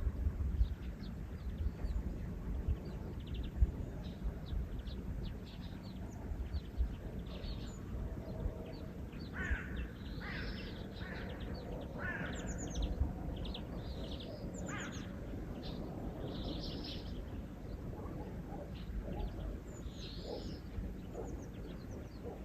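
Small birds chirping in short, high notes throughout. A few louder, harsher calls come in around the middle, over a steady low rumble.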